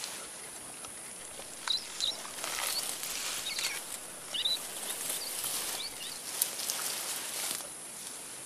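Forest vegetation rustling and crackling in irregular stretches, with a handful of short, high bird chirps.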